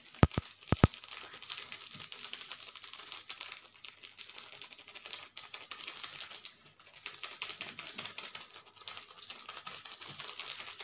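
Small paper seasoning sachets being torn open and handled over pizza, a continuous crinkling and rustling of paper. Four sharp clicks in two quick pairs come within the first second.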